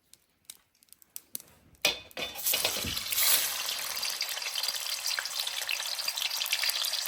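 Tofu frying in hot oil: a few light clicks, then about two seconds in a sudden loud sizzle that keeps on steadily as the oil bubbles around it.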